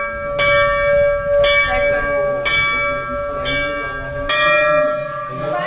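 Hanging Hindu temple bells struck by hand one after another, about once a second. Each clang rings on in a sustained metallic tone, with a louder strike a little past four seconds in.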